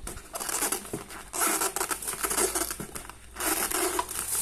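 Packaging rustling and crinkling as the unit's contents are unpacked by hand, in two longer bursts, about one and a half seconds in and again near the end.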